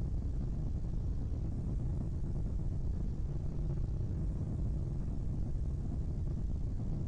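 A steady, deep rumbling noise, heaviest in the bass, with no tones or separate events, presented as the "sound" of asteroid 2009 YE7.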